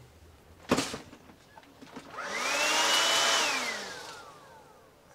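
Black & Decker handheld vacuum cleaner switched on briefly: its motor whines up in pitch, runs for about a second, then winds down in pitch as it is switched off. A single knock comes shortly before it starts.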